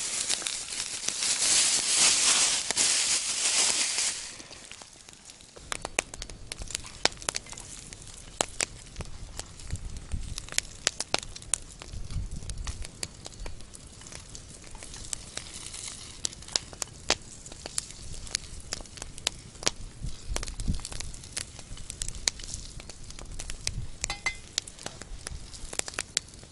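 A loud hissing rush for about four seconds as frozen pelmeni are tipped from a plastic bag into a hot frying pan. Then the pelmeni fry in the pan over a small wood campfire, a quieter crackle with frequent sharp pops.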